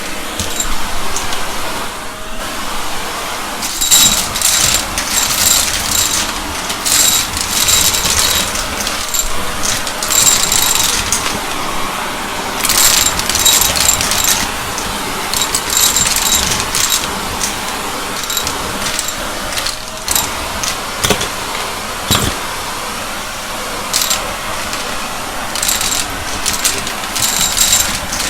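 Shark vacuum cleaner running steadily, with repeated short bursts of rattling as scattered debris is sucked up.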